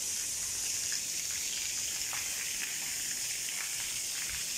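Overhead water sprinklers spraying over dairy cows: a steady high hiss of spray with a few faint drips and splashes.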